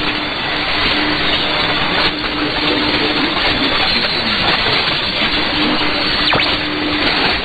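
Shortwave radio tuned to 6100 kHz in AM: a steady rush of static and band noise, with a faint low hum that comes and goes. The broadcast itself is too weak to make out under the noise.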